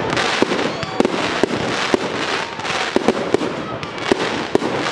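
Fireworks display: aerial shells bursting with sharp bangs about twice a second over a continuous crackle and hiss from the glittering stars.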